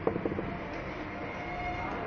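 A few quick metallic clicks of pliers against a motorcycle starter motor's brush holder while new carbon brushes are being fitted. A steady low background noise follows.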